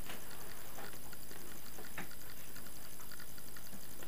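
Steady background hiss with a few faint, scattered clicks and taps.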